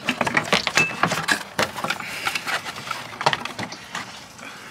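Plastic radiator fan shroud and fan being worked out of the engine bay: a quick run of knocks, scrapes and plastic clatter, thinning out after about two seconds.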